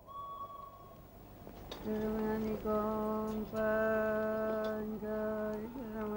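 Slow, wordless singing: a voice holds long notes on nearly one low pitch, broken by short gaps, starting about two seconds in.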